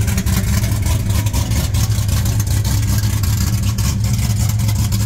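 Pickup truck's engine idling steadily and loudly, close by.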